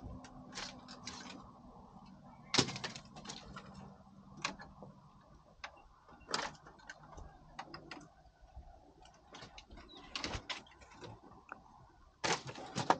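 Irregular knocks and clicks, the loudest about two and a half seconds in, around six seconds and near the end.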